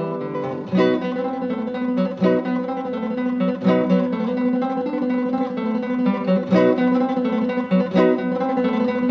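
Background music: an acoustic guitar playing, plucked and strummed.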